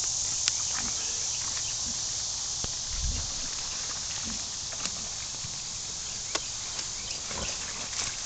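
Steady high-pitched drone of summer insects, with footsteps on grass and a few low grunts from pigs in a pen.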